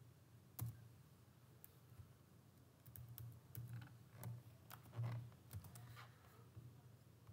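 Faint computer keyboard typing: a dozen or so irregular keystrokes and clicks, spread out with short pauses between them.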